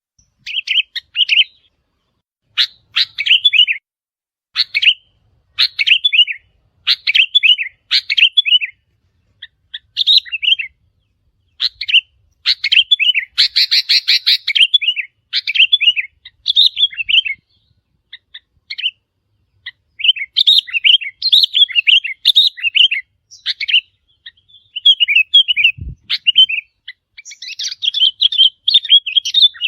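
Sooty-headed bulbuls singing: short, bubbly, chirping phrases repeated about once a second, sometimes overlapping. There is a brief low thump near the end.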